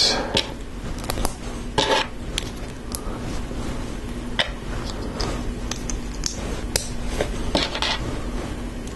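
Plastic LEGO bricks and plates clicking and clattering as they are picked out of a loose pile on a table and pressed together, with scattered sharp clicks and small clusters about two seconds in and near the end.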